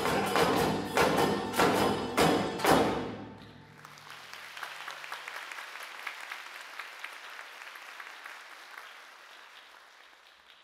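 Taiko drums and the ensemble play a final run of heavy strikes that stops abruptly about three seconds in. Audience applause follows and slowly dies away.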